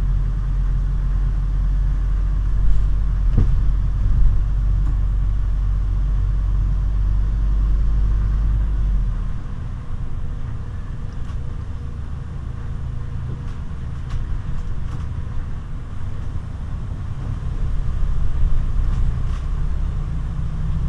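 Scania CN280UB city bus on the move, heard from inside the passenger cabin: its 9.3-litre Scania DC9 five-cylinder diesel and the road noise make a deep, steady drone. About nine seconds in, the deepest part of the drone drops away and the sound turns to a rougher rumble. A few short knocks and rattles come through.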